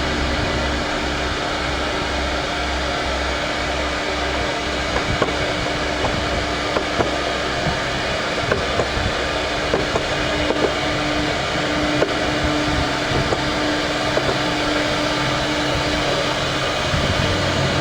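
A power woodworking tool's motor running steadily with a constant whine, with scattered sharp ticks and clicks from about five seconds in.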